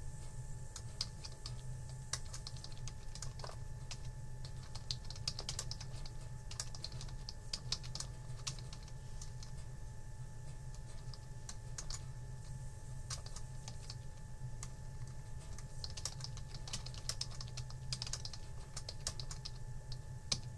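Typing on a computer keyboard: irregular key clicks coming in quick runs with short pauses, over a steady low hum.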